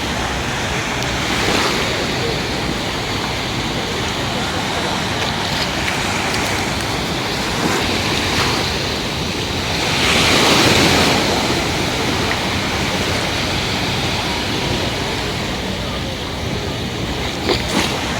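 Mediterranean Sea surf washing steadily onto the beach, with one louder wave breaking about ten seconds in.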